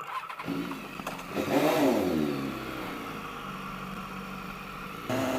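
Motorcycle engine starting up, flaring in revs about a second and a half in, then dropping back to a steady idle. Near the end the sound jumps abruptly louder to a different, steadier engine drone.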